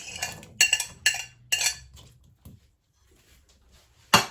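Kitchen utensils and crockery clinking and clattering against a soup pot as chopped carrots are added. There are three sharp clatters in the first second and a half, then a louder clatter near the end.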